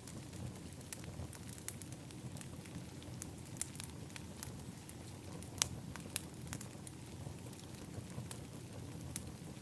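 Wood fire in an outdoor fire pit crackling, with many scattered sharp pops, the loudest about five and a half seconds in, over a low steady rumble.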